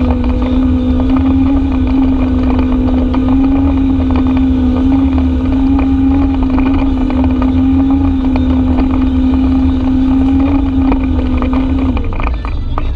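Side-by-side UTV engine running at steady revs, a constant drone with wind buffeting the microphone; the engine note drops off about a second before the end.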